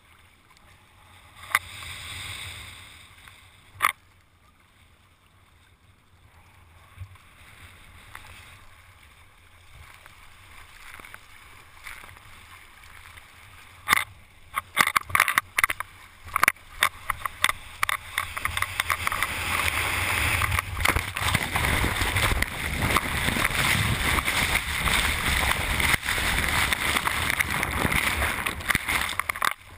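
Water sounds from a surf kayak picked up by a hull- or helmet-mounted action camera: scattered sharp knocks, a burst of them from about fourteen seconds in, then a loud, steady rush of breaking whitewater from about eighteen seconds in.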